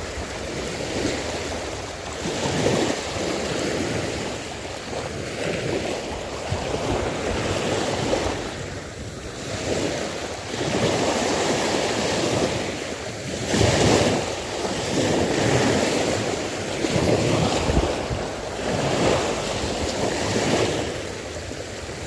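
Sea waves washing in and out, swelling and fading every few seconds, with wind rumbling on the microphone.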